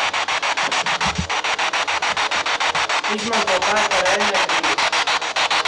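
Spirit box radio scanner sweeping through stations: loud static chopped rapidly, about ten times a second, with brief snatches of voice-like radio sound from about three seconds in.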